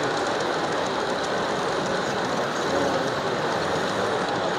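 Large-scale model train rolling past close by on brass track: a steady rumble of wheels and motor, with faint scattered ticking.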